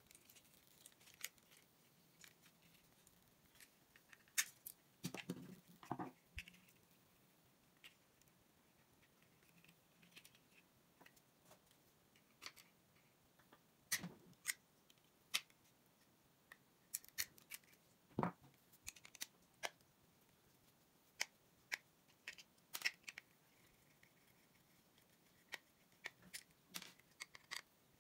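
Scattered sharp clicks and taps of plastic gaming-mouse parts and small hand tools being handled as the mouse is taken apart, with a few heavier knocks among them.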